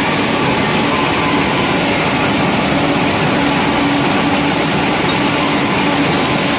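Row of pellet mill presses running: a loud, steady industrial noise with a constant hum under it.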